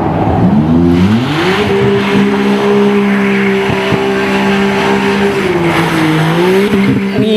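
Maserati MC20's twin-turbo V6 revving up and held at high revs while the rear tyres spin through donuts, the spinning tyres adding a rushing hiss; the revs dip briefly about six seconds in and climb back.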